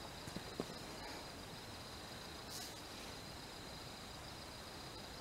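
A steady, high chorus of night insects, with a few faint clicks in the first second and a short soft hiss about halfway through.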